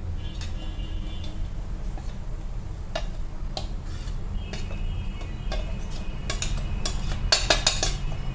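Kitchen utensils clinking and tapping as ground spice powder is tipped into a pan of cooked gongura leaves: scattered single taps, then a quick run of clicks near the end, over a steady low hum.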